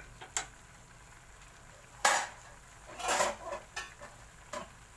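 Wooden chopsticks clattering against an aluminium cooking pot as they are tapped and set down: a light knock about half a second in, a louder clatter around two seconds, a quick run of knocks a second later, and a last small tap near the end.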